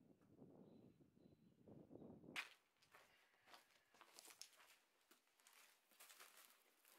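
Faint sounds of bricks being handled and laid: a soft low scraping, then, about two and a half seconds in, a sharp click followed by scattered light knocks and scrapes as firebricks are set into place.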